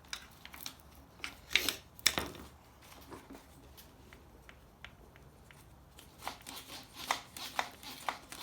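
Scattered clicks and scrapes of a hand tool on metal as the neutral safety switch is worked off an AW4 automatic transmission, with a cluster of sharper knocks about two seconds in and more clicking near the end.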